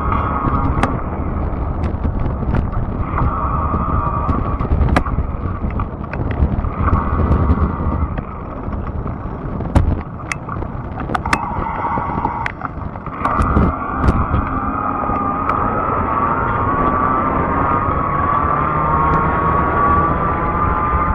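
Fat-tire electric bike riding along: a steady whine from the drive and tires, with a low rumble and scattered clicks and knocks from bumps. The whine drops away for a few seconds in the middle, then returns and rises gently in pitch near the end as the bike speeds up.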